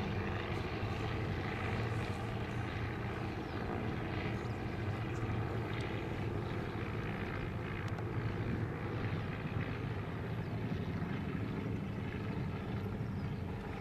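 Piston engine of a small vintage propeller airplane flying overhead, a steady drone.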